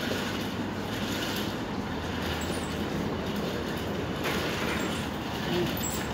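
Steady rumble and hiss of city traffic, without distinct events.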